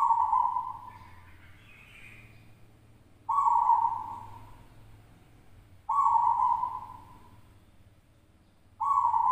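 Zebra dove (perkutut) cooing: four coos about three seconds apart, each about a second long, starting suddenly and trailing off.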